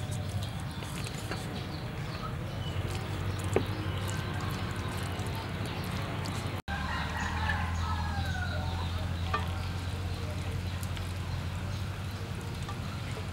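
A chicken clucking with short calls, over a steady low hum. The sound drops out for an instant just past halfway.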